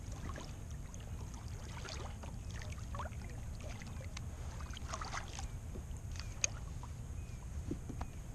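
Faint water movement and small knocks around a plastic fishing kayak, over a steady low rumble, with one sharp click about six and a half seconds in.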